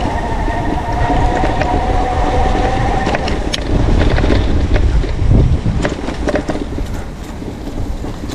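An e-bike's 750 W brushless geared hub motor whining under throttle, its pitch rising slightly as the bike speeds up, until it cuts off about three seconds in. Heavy wind rumble and scattered clicks and rattles from the bike riding over rough grass fill the rest, loudest around the middle.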